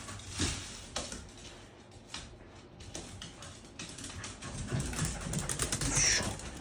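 Dogs scuffling over a toy, with scattered soft knocks and rustles, and a short high whine about six seconds in.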